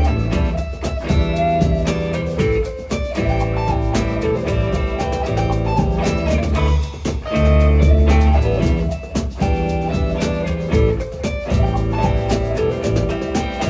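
Live band music: an instrumental passage of an acoustic arrangement, with guitar and drums playing and no singing.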